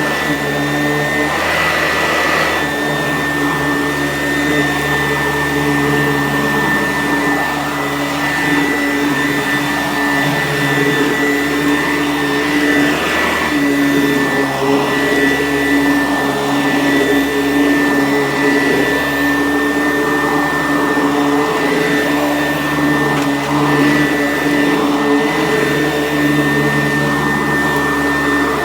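Sanitaire S663 upright vacuum cleaner running steadily, its motor giving a constant high whine over a lower hum.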